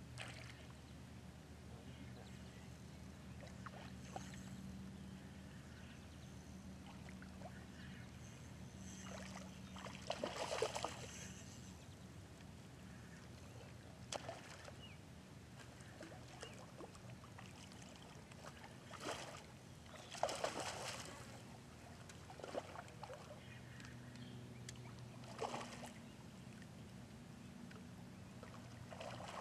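A hooked striped bass splashing at the surface close to shore while being played on a spinning rod: several short splashes, the loudest about ten and twenty seconds in. A steady low motor hum sits under it, fading out in the middle and returning near the end.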